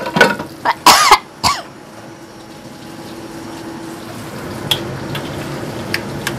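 A person coughs a few times, loud and short, in the first second and a half. Then comes a steady hiss with a low hum as the coconut-milk fish curry simmers in the wok on the gas burner, with a few light clicks near the end.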